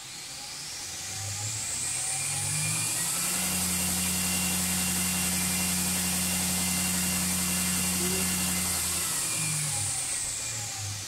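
Variable-speed belt grinder's motor and belt spinning up from low speed, running steadily at top speed with a high whine, then slowing back down near the end, with nothing being ground.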